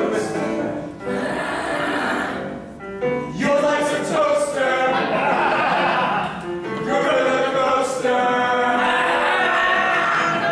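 Several performers' voices howling together in long held notes that slide up and down in pitch, sounding like a choir.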